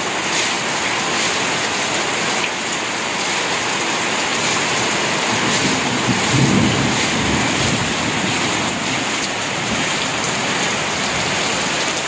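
Heavy rain pouring steadily, with water streaming off the edge of a corrugated metal roof. A low rumble swells about six seconds in.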